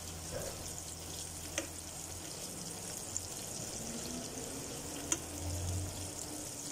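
Diced onions sizzling in oil in a nonstick pan as they sauté toward translucent, stirred with a spatula, with a couple of sharp clicks of the spatula against the pan.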